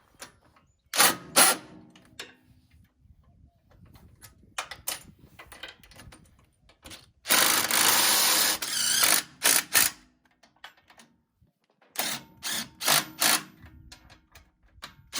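Bolts on a Jeep Wrangler JK's track bar brace being tightened with a tool, heard as short noisy bursts: two about a second in, a longer run of about two seconds near the middle, and several more near the end, with small clicks between.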